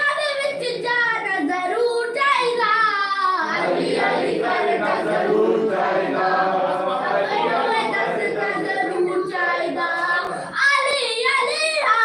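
A group of boys singing a devotional chant in praise of Ali together. The voices thicken into a full chorus a few seconds in, dip briefly near the end, then pick up again.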